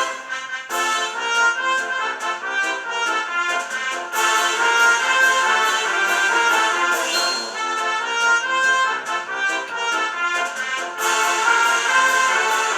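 Background music: an instrumental tune with accordion-like and brass-like melody lines over a steady rhythm.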